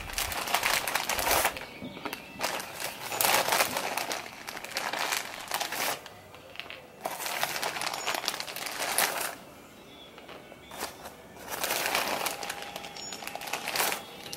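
Small plastic parts bags crinkling and rustling in spells of a second or two with short pauses, as parts are taken out and laid on the table, with a couple of sharp clicks about two-thirds of the way in.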